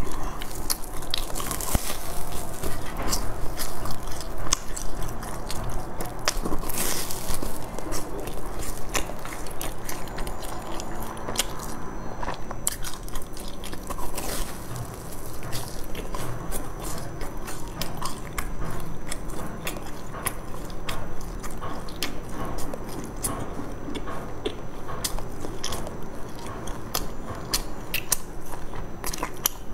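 Close-miked eating of a large fried sesame ball: crunching bites into its crisp, hollow shell and chewing, with dense crackles throughout.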